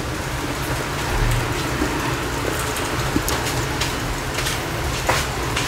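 Cardboard tarot-card box being handled and turned, with a few taps and rustles about three, four and a half and five seconds in, over a steady low background rumble.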